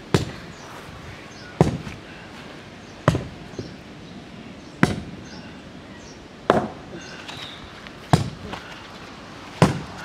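Sledgehammer blows against the base of a fence post, knocking it loose to pull it out: seven heavy strikes at an even pace, about one every second and a half.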